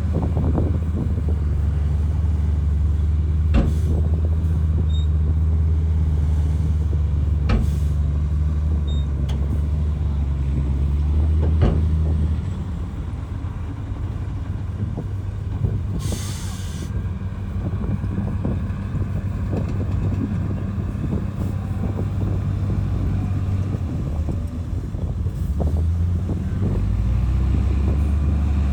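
Heavy diesel earthmoving machinery running under load, with a few sharp metallic clanks. The engine eases off about twelve seconds in, a short hiss of air comes a few seconds later, and the engine builds again near the end.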